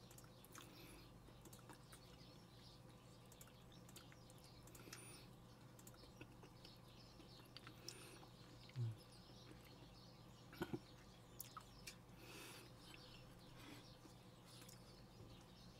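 Near silence: faint steady room hum with small eating noises, a soft low thump about nine seconds in and a couple of quick clicks a little later.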